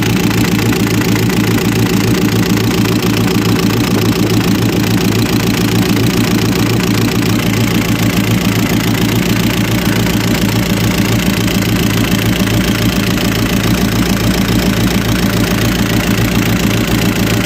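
Hino truck diesel engine idling steadily with a fast, even pulse.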